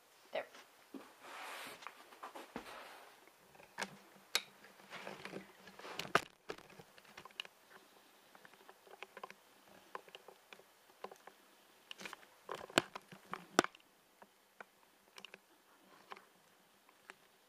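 Pen scratching on notebook paper for a couple of seconds, then scattered soft clicks, knocks and rustles of the recording device being handled and moved, the loudest knocks about six and about thirteen seconds in.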